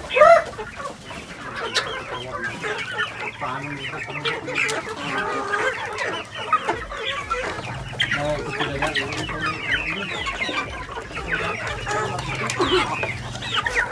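A flock of chickens clucking and calling over one another, with one louder call right at the start.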